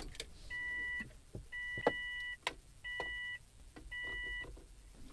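Four steady electronic beeps, each about half a second long and roughly a second apart, with light clicks of keys and switches between them.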